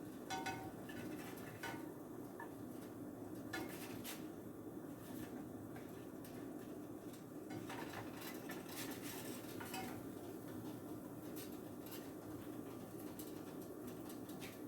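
Faint scattered clinks and taps of a cooking utensil against a pan, a few with a brief metallic ring, over a steady low hum.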